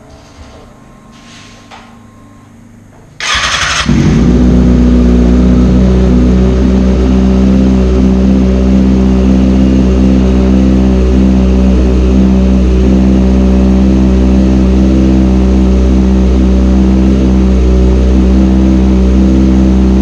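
Kawasaki ZX-6R's 600cc inline-four engine started about three seconds in: a brief starter crank, then it catches and idles loud and steady. This is the first run on fresh oil and a new filter.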